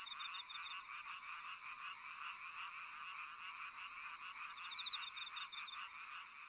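Chorus of calling animals, pulsing about twice a second, with a steady high-pitched ringing tone over it.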